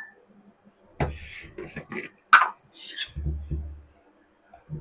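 Plastic lid being taken off a tub of custard powder and the tub and a mug being handled: a run of clicks, scrapes and rustles, the sharpest about two seconds in, followed by a few dull low thumps.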